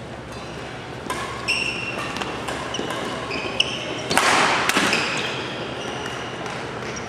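Badminton rally: sharp racket hits on the shuttlecock and players' shoes squeaking on the court mat. A little after four seconds in comes a louder, rougher burst lasting under a second.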